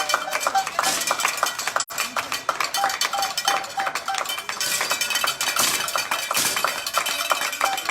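Rapid, dense clicking and metallic clinking with runs of short, repeated high beeps, on an air pistol range during a final's shooting series.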